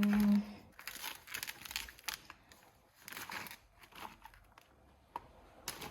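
Plastic grocery packaging and bags crinkling in irregular bursts as packs of food are handled.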